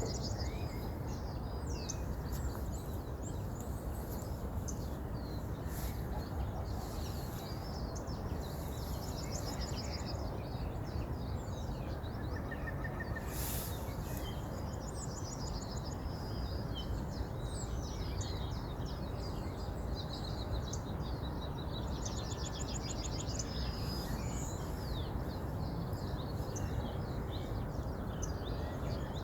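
A river flowing with a steady rushing sound, while small birds chirp and trill over it throughout, with several quick trills.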